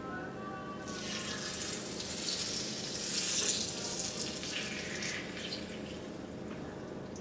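Water running from a kitchen tap into a sink, starting about a second in and splashing unevenly.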